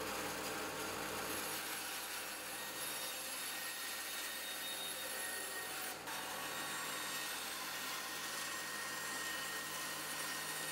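Bandsaw running and cutting through wooden dowel stock by hand feed: a steady sawing noise over the motor's hum, with a brief break about six seconds in.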